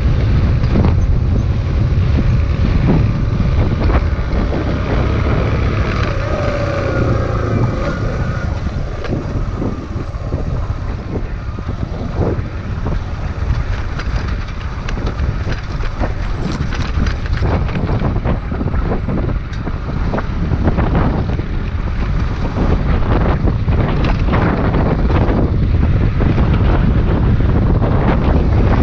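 Kawasaki Z125's small single-cylinder four-stroke engine running as the motorcycle rides a rough dirt trail, with the pitch rising briefly early on. Wind rushes over the microphone, and frequent knocks come from the bumpy ground.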